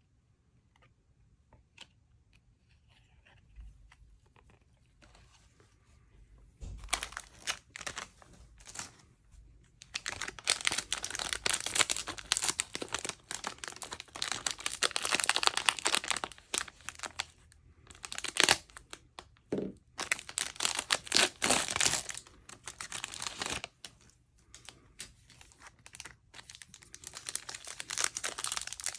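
Plastic foil wrappers of Panini Mosaic trading-card packs being torn open and crinkled by hands. After a few quiet seconds, loud bursts of crinkling rustle come in about seven seconds in and carry on in stretches, with short pauses between.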